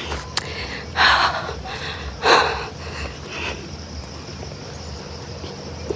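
A person breathing hard from exertion on an uphill hike, with two heavy exhalations about one and two seconds in and lighter breaths after.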